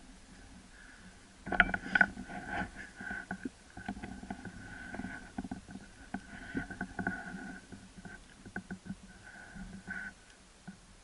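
A moose right at the microphone: irregular knocks, rustling and low rumbling that start suddenly about a second and a half in and die away near the end, over a faint steady whine.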